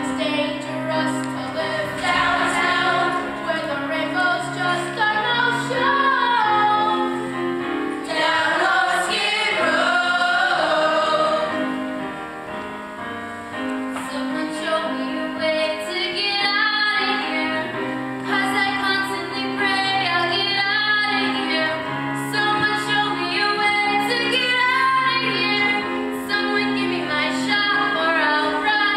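Students singing a stage-musical song, female voices leading with a group of voices joining in, over instrumental backing with steady held bass notes.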